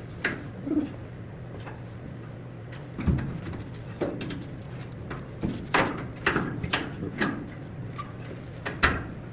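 Hammer blows driving a steel hinge pin out of a dump truck bed hinge: about ten sharp strikes, unevenly spaced, with a steady low hum underneath.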